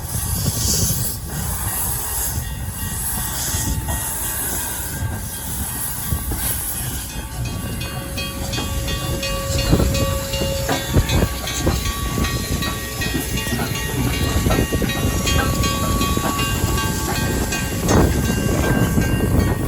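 Train running on the rails: a steady rumble with a hiss for the first several seconds, then repeated wheel clicks and brief squealing tones.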